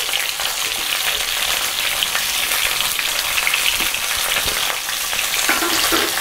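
Hot cooking oil in a nonstick kadai sizzling steadily around freshly added whole tomatoes, coriander leaves and garlic, with a fine crackle through it.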